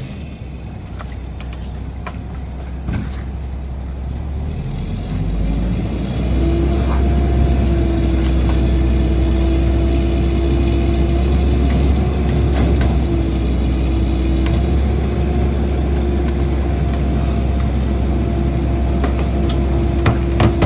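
McNeilus rear loader garbage truck cycling its packer. The Mack MR's diesel engine throttles up about six seconds in to drive the hydraulic pump, and a steady hydraulic whine holds over the deep engine rumble while the blade sweeps and compacts the hopper. There are occasional clanks.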